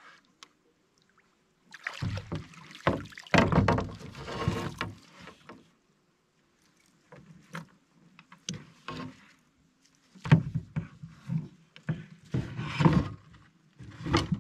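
Irregular bursts of water splashing and knocks against a canoe as a hooked smallmouth bass is fought at the boat's side, in two busy spells with a lull between.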